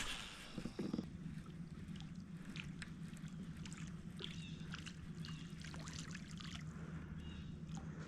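Faint water trickling and dripping around a kayak, with many small splashes and ticks over a steady low hum.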